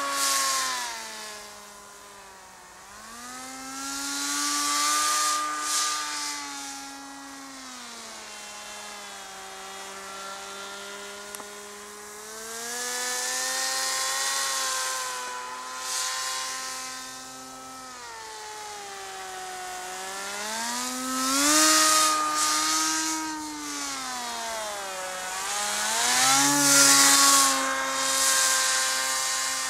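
Electric motor and propeller of a radio-controlled paramotor, a buzzing whine whose pitch sags and climbs again several times as the throttle changes. It swells loudest a few times, about four, twenty-two and twenty-seven seconds in.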